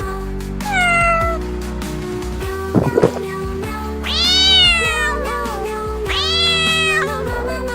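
A cat meowing three times over background music: a short falling meow about a second in, then two longer meows that rise and fall. A brief clatter comes about three seconds in.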